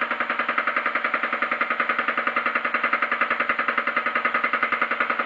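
A milling machine's cutter, turning at about 600 rpm, is cutting gear teeth into a brass blank with a rapid, even knocking of about ten knocks a second, one for each turn of the cutter. The cut is thumpy: it is a heavy cut with a tool that is not fully sharp and that keeps working loose, and that type of knocking is never good.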